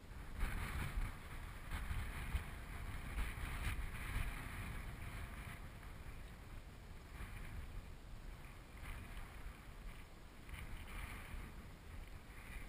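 Wind buffeting the microphone: a low rumble with gusts of hiss that swell and fade, strongest in the first few seconds and again near the end.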